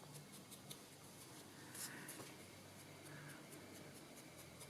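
Faint soft rubbing and dabbing of a makeup sponge loaded with Distress ink against the edge of an MDF tag.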